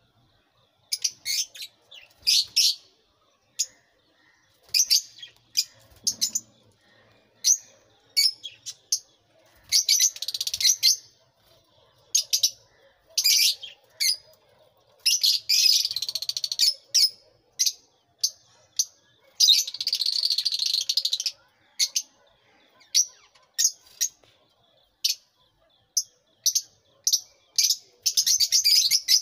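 A flock of Fischer's lovebirds calling: sharp, high-pitched chirps, singly and in quick runs, with three longer bouts of dense shrill chattering in the middle.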